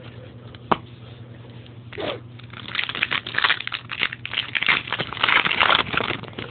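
A trading-card pack wrapper being torn open and crinkled: one sharp click just under a second in, then a dense run of crackling and tearing from about two and a half seconds in to near the end.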